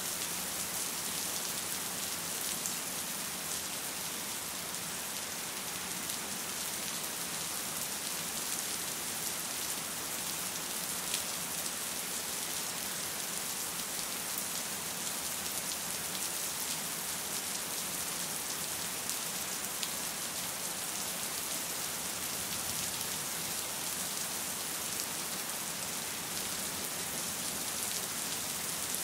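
Steady rain falling: an even, unbroken hiss, with occasional sharper ticks of single drops.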